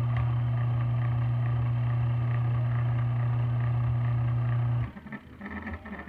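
Washing machine wash motor, wired through a wash timer, running with a loud steady electric hum, then cutting off abruptly about five seconds in as the timer switches it off.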